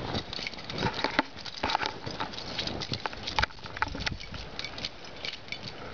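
Irregular crunching of footsteps in deep snow, a quick uneven run of soft crunches.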